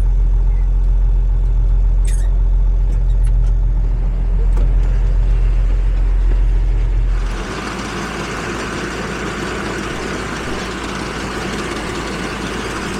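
Farm vehicle engine idling with a steady low rumble. About seven seconds in the sound changes abruptly to a steady rushing noise with much less rumble.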